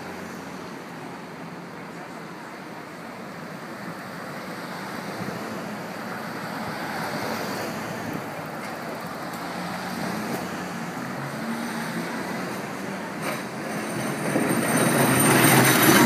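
Street traffic noise as a New Orleans St. Charles line streetcar rolls along its street rails toward the listener. Its rumble grows louder from about two seconds before the end as it passes close by.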